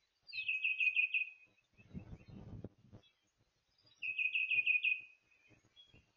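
A songbird singing a short phrase of about five quick, repeated whistled notes, twice, a few seconds apart. Soft scratchy rustling comes between the two phrases.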